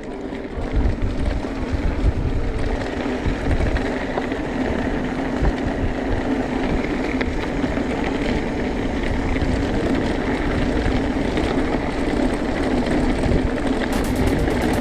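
Wind buffeting and the rumble of a hardtail mountain bike's tyres and frame rolling fast over a dirt trail, heard on an action camera mounted on the rider or bike. A rapid, even ticking comes in near the end.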